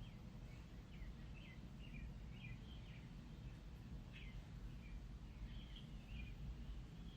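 Small birds chirping faintly in a string of short, high, quick notes, over a steady low background rumble.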